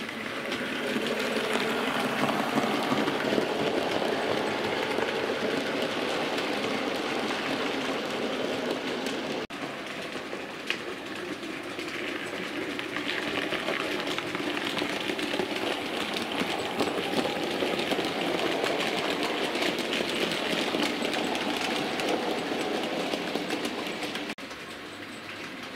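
Bachmann Class 56XX OO gauge model tank locomotive running on model railway track: its small electric motor whirs while the wheels make a fine rapid clicking over rail joints and points. The level swells and fades gently, with two brief drop-outs, one about nine seconds in and one near the end.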